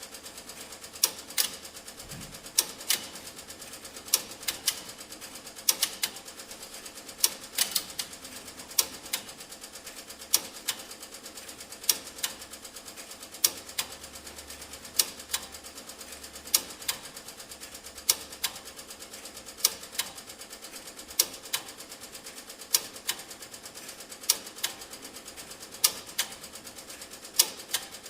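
Teletype machine printing: a fast, even mechanical clatter, with a louder sharp clack about every second and a half.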